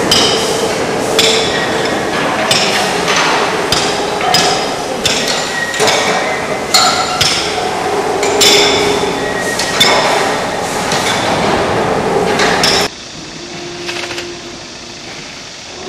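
Hand tools striking steel concrete-pole moulds: irregular, overlapping metal-on-metal clanks with a ringing tail, several a second from several workers. About three seconds before the end it cuts to a much quieter steady background noise.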